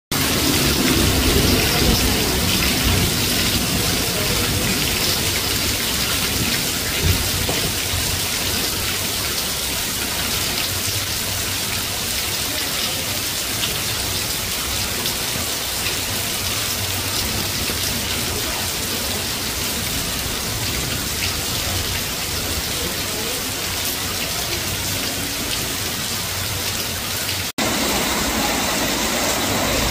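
Heavy downpour: dense raindrops pattering and splashing on wet concrete, tiles and puddles in a steady hiss. It breaks off for an instant near the end and resumes.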